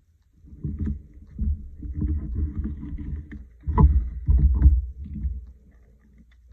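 Low thuds and rumbling handling noise as a paper collage card is pressed down, picked up and moved over the work table, with two louder knocks about four seconds in.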